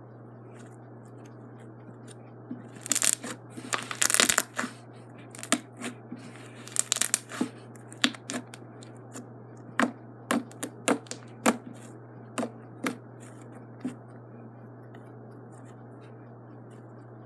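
Purple slime being squeezed, folded and pressed by hand on a table, giving a run of sticky clicks and air-bubble pops. They come thick and crackling about three to four seconds in and again near seven, then as single pops every half second or so, stopping about fourteen seconds in.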